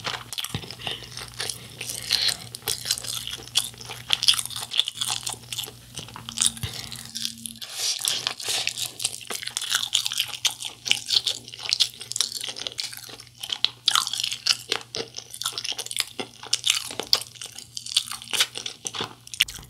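Close-up eating sounds of a sauced fried chicken drumstick: crisp, irregular crunching and wet chewing as the coating and meat are bitten and chewed, continuing throughout.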